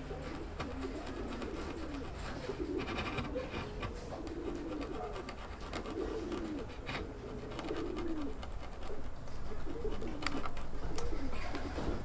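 Doves cooing over and over in the background, with the crackling scrape of a hand chisel paring wood fibres about three seconds in and a few sharp ticks later on.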